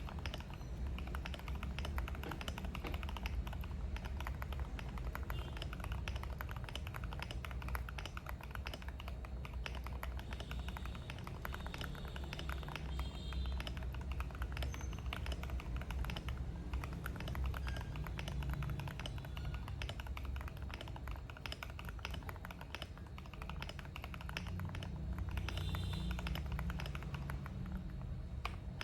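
Fast, continuous typing on a Tofu65 65% mechanical keyboard with new keycaps, a steady stream of key clicks with a creamy sound.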